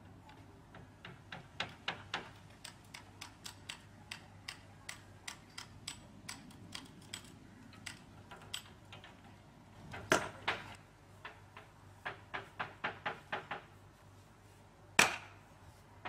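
A tool striking wood, a light knock repeating about two to three times a second, with a couple of much heavier blows about ten seconds in and another near the end.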